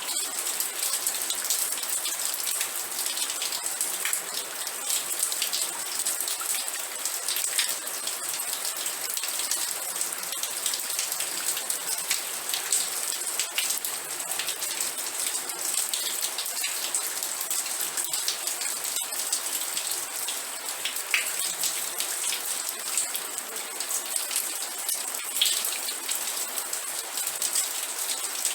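Steady rain falling, an even hiss with many small drop ticks spattering on a surface.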